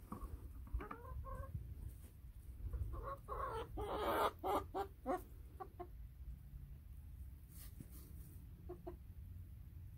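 Hens clucking in short separate calls, with a louder, busier flurry of clucking and squawking about four seconds in, then a few scattered clucks.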